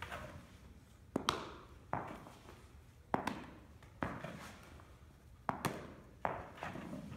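Baseballs thrown in on a short hop, bouncing on the turf floor and smacking into a leather glove during backhand scooping drills. A series of sharp smacks, often in quick pairs, about one to two seconds apart, each with a short echo in the big indoor batting cage.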